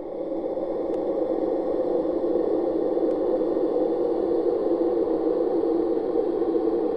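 A steady rushing noise, heaviest in the low-middle range, swelling over the first second or two and then holding level.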